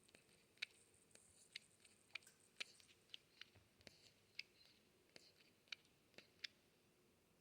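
Faint, irregular small clicks, roughly two a second: the mouth sounds of a baby North American porcupine as it drinks or eats.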